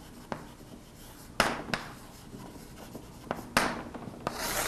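Chalk writing on a blackboard: several sharp taps of the chalk against the board, then a scratchy scraping stroke near the end.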